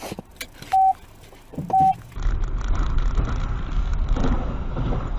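Three short, loud electronic beeps on one steady pitch, about a second apart. Then steady car driving noise follows: a low engine and tyre rumble with a hiss from a wet road.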